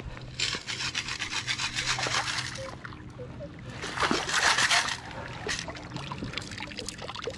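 Stainless steel sand scoop grinding and scraping into gravel under shallow water, then lifted out about four seconds in with water rushing and splashing out through its perforated basket.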